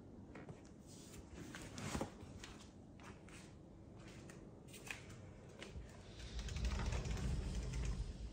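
Scattered light clicks and rustles, then a sliding wardrobe door rolling open along its metal floor track, a low rumble over the last two seconds or so.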